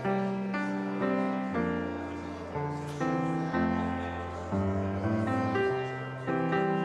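Piano postlude: chords struck about once or twice a second, each left to ring and fade.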